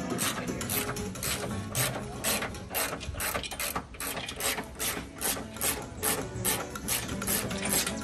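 Hand ratchet wrench clicking in a steady run, about three clicks a second, as a bolt is turned.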